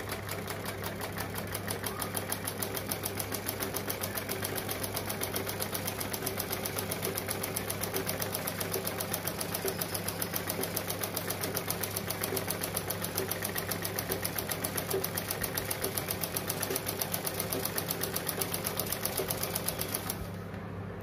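Black Usha sewing machine stitching a seam through layered cloth: a fast, even run of needle strokes that stops near the end.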